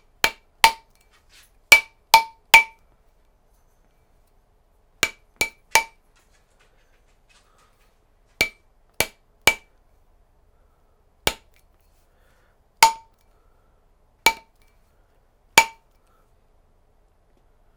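A mallet tapping a re-soldered brass ring on a ring mandrel, about fifteen sharp strikes in small groups of two or three, each leaving a short metallic ring. The blows shape and stretch the ring toward size and put the new solder joint to the test.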